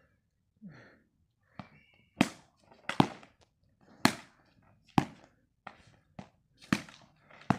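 Cricket bat striking a rubber ball tethered on a string to a ground base, a series of sharp cracks roughly one a second as the ball swings back for each hit.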